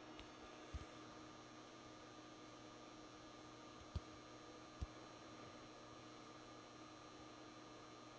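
Faint, steady electrical hum from a running 400 W metal halide lamp and its ballast, with a few short, soft knocks, the sharpest about four and five seconds in.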